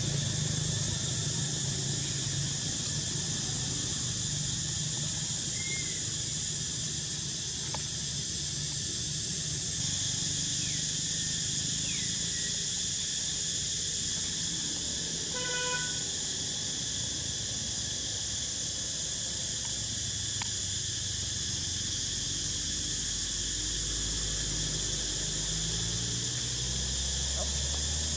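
Insects droning steadily at a high pitch, with a faint low rumble beneath. A short high beep sounds once about halfway through, and a few faint squeaks come and go.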